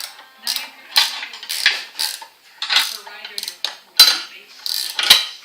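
Steel wrench and bolts clinking against the steel of a vise's mounting plate as the bolts are tightened: a run of sharp metallic clinks about every half second, the loudest about four seconds in.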